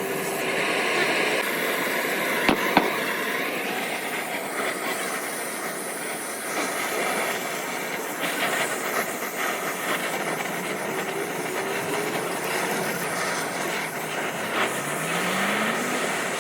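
Steady, dense hissing machine noise, with two sharp clicks about two and a half seconds in and a short rising whine near the end.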